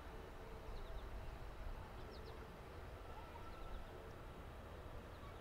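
Faint outdoor ambience: a steady low rumble with a few short, high bird chirps scattered through it.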